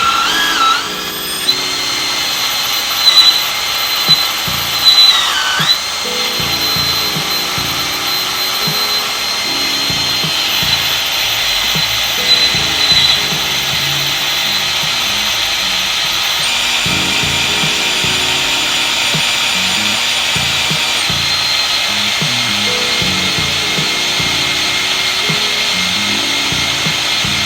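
Half-inch electric drill running a Time-Sert thread-repair drill bit, cutting into a head-stud hole in a Honda B18B1 aluminium engine block, with motor oil on the bit. The drill's whine dips in pitch a few times in the first several seconds as it loads, then runs steady.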